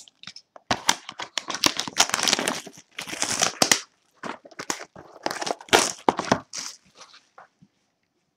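Plastic wrapping crinkling and tearing in a run of irregular bursts as a sealed hockey card box is unwrapped. The sound dies away near the end.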